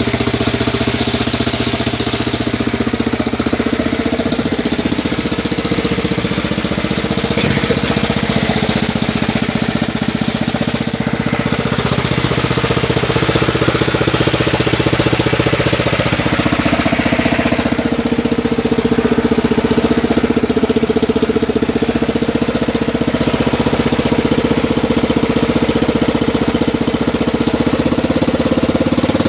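John Deere 100 lawn tractor's replacement 16 hp engine running steadily, its speed shifting slightly twice along the way.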